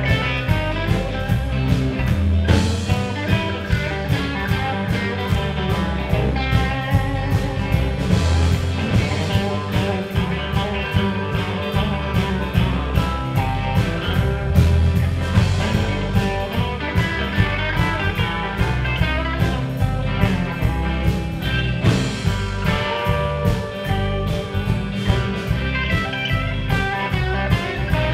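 Live band playing: electric guitars over bass guitar and a drum kit keeping a steady beat.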